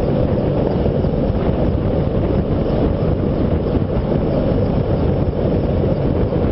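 Helicopter rotor and engine noise heard from a slung load hanging beneath it: a steady, heavy rumble with rotor downwash buffeting the microphone.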